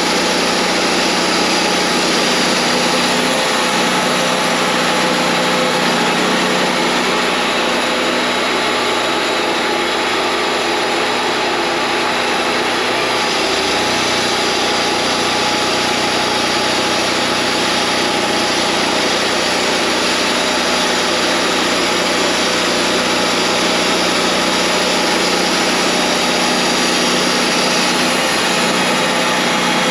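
Wood-Mizer LT40 portable bandsaw sawmill running, its engine and band blade making a loud, steady noise, with a slight change in the low engine hum about halfway through.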